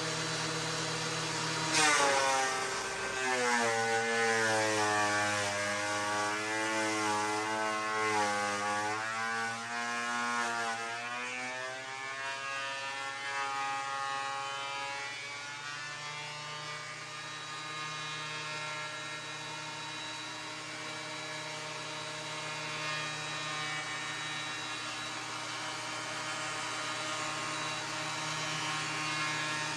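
Ridgid 13-inch thickness planer running. About two seconds in, a plank feeds into the cutterhead with a sudden loud bite. The motor's pitch then drops and wavers under the load of the cut for about ten seconds before climbing back as the board passes through, and it runs on steadily after that.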